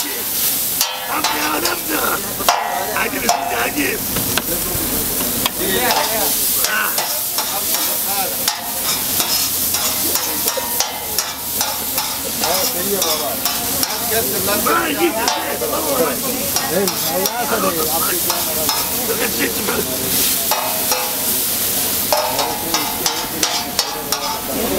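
Liver frying in a large wide metal pan over a flame, with steady sizzling. A metal ladle scrapes and clanks against the pan again and again as the meat is stirred.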